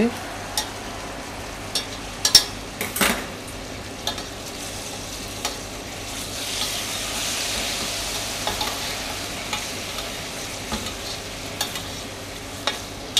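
Forest-fruit sauce with meat sizzling in a stainless steel saucepan on a gas flame while a utensil stirs it, clicking and knocking against the pan now and then. The sizzle grows louder for a few seconds around the middle.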